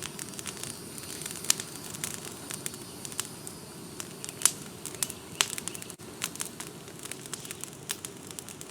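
Brush-pile fire of vine-tangled shrubs and oak limbs burning steadily, with irregular sharp crackles and pops over a low steady rumble.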